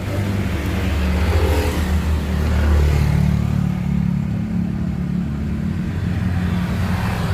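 A motor vehicle engine running steadily, a low drone that holds level throughout.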